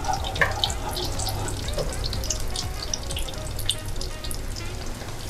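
Cheese-filled dough balls deep-frying in hot oil in a stainless steel saucepan: a steady sizzle with many small scattered crackles and pops.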